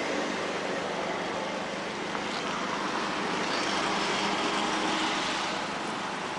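Road traffic noise: a steady hiss of tyres and engines, swelling as a vehicle passes, loudest about four to five seconds in.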